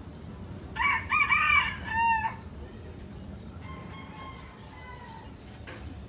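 A rooster crowing, loud, about a second in, the call ending on a falling note. A second, fainter crow follows a couple of seconds later.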